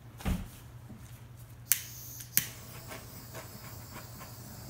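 Two sharp clicks about two-thirds of a second apart, a small handheld butane torch's igniter being clicked to light it for popping bubbles in fresh epoxy resin, after a soft thump near the start and followed by a few faint ticks, over a low steady hum.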